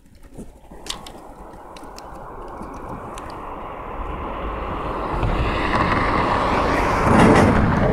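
A motor vehicle approaching and passing close by, its noise building steadily over several seconds to a peak near the end. A few faint clicks come in the first second.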